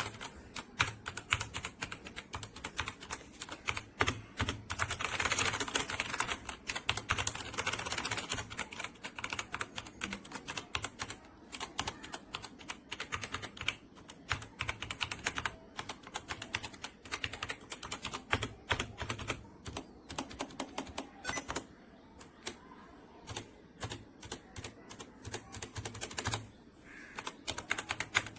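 Mechanical keyboard being typed on: fast, irregular key clicks, thinning out for a few seconds toward the end.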